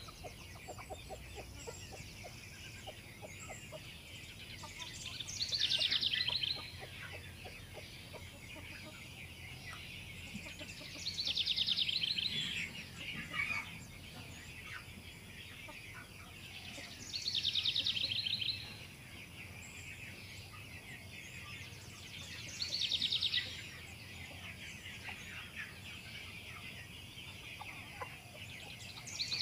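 A flock of young chicks peeping steadily, high-pitched. About every six seconds a louder swell of massed peeping rises and fades within a second or so.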